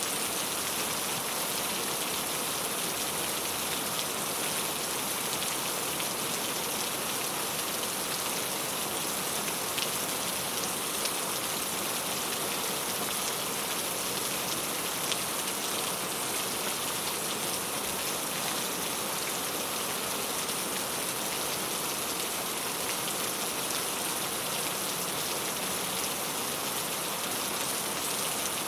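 Steady rain falling on a clay tile roof: an even hiss of rain with a few separate drops heard as small ticks.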